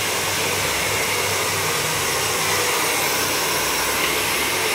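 Handheld hair dryer running steadily, an even rush of blown air with a faint low hum underneath, as hair is blow-dried.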